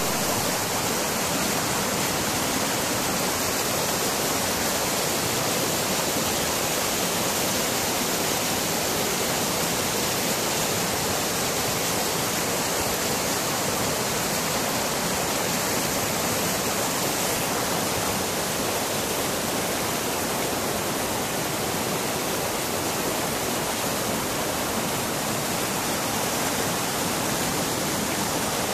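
Whitewater rapids of the Chiani river: fast, torrential river water rushing over rocks in a steady, unbroken wash of noise.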